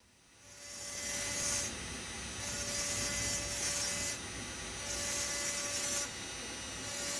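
High-speed engraving drill grinding into a crystal glass block with a burr: a gritty hiss in about four bursts, each a second or so long, with a faint steady whine under each.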